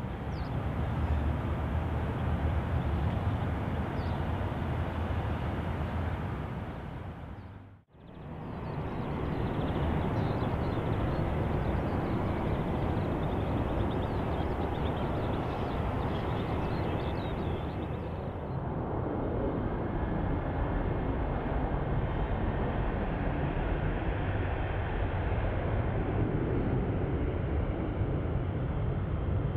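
Jet airliner engines, a steady deep rumble with rushing noise as aircraft pass near the runway. The sound dips out briefly about eight seconds in and changes character again after that.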